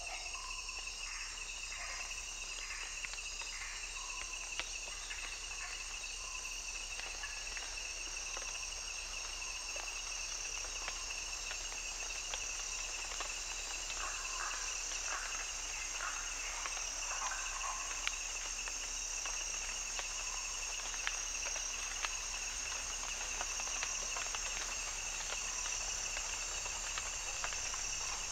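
Insect chorus with a steady high-pitched chirring, from a soundscape recorded in a natural habitat. Short, lower pulsed calls come and go over it, most of them about halfway through.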